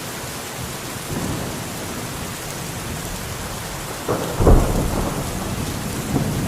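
Steady rain with rumbles of thunder; the loudest rumble comes about four seconds in.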